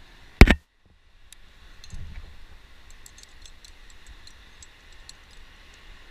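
A single loud, sharp knock about half a second in, then the sound cuts out briefly. A soft thump follows around two seconds in, then a scatter of faint light clicks: a climber's gear and camera knocking against rock while climbing.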